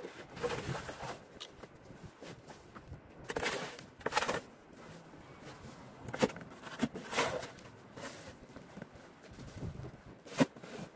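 Snow shovel scraping along a snow-covered sidewalk and pushing snow, in irregular strokes a second or two apart, with a couple of sharp knocks of the blade.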